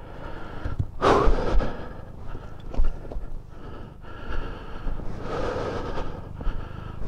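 A person breathing heavily close to the microphone: one hard breath about a second in and a longer one about five seconds in, over low rumble.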